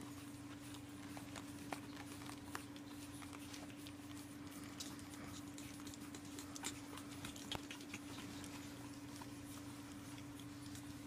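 Pug puppies scuffling and wrestling on a padded fabric floor: scattered light taps, scratches and scrabbling of small paws and claws, over a steady low hum.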